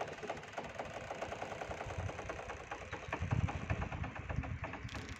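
Mooring ropes of a moored fishing boat creaking as they tighten against the post while the water moves the boat: a rapid run of creaking pulses for several seconds, with a low rumble about three seconds in.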